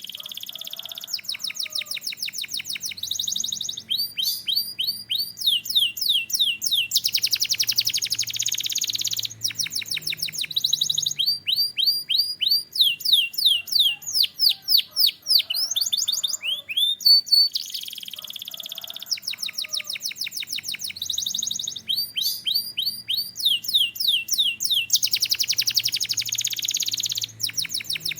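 Canary singing continuously in fast trills and rolls, each phrase a quick run of repeated high rising or falling notes, switching to a new phrase every second or two.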